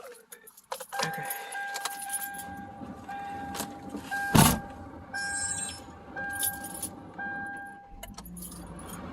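Keys jangling and clicking, with a steady electronic tone sounding in several short stretches and one loud knock midway; a low steady rumble begins near the end.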